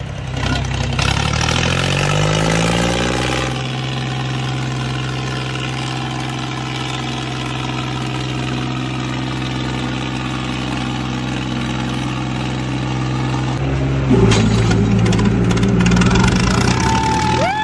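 Tractor diesel engines, a John Deere 5050 and a New Holland 3630, revving up over the first few seconds and then held at steady high revs while pulling against each other in a tug-of-war. About fourteen seconds in the engine sound grows louder and rougher, and near the end a high tone rises and holds.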